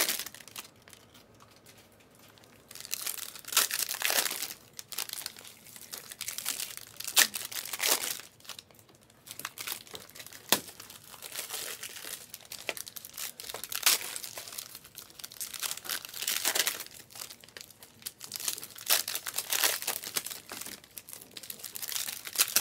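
Trading-card pack wrappers crinkling and tearing as packs are ripped open and the cards handled. The crackling comes in irregular bursts with short pauses.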